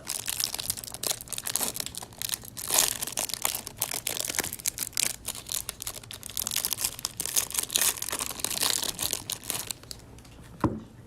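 A trading-card hanger box being torn open, with its cardboard and plastic packaging tearing and crinkling in an irregular run of crackles that stops about ten seconds in. A single sharp knock comes near the end.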